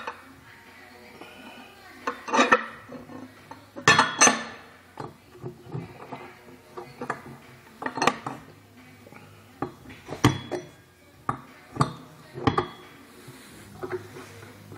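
Sharp clinks and knocks of a display table's chrome metal post and tier being handled and hand-screwed together, about eight irregular taps, a few ringing briefly.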